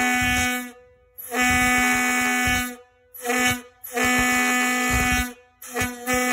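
Steam locomotive whistle blown on compressed air, sounding a steady single pitch with a rush of air over it. The tail of one blast ends, then comes a long blast, a short one and another long one, and a short, broken toot near the end.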